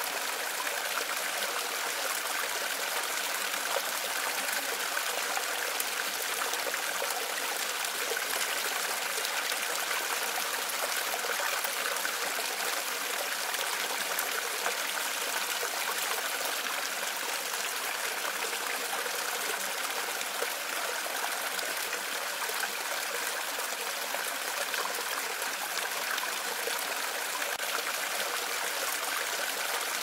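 River water rushing over a wide, low waterfall, a steady even hiss without change.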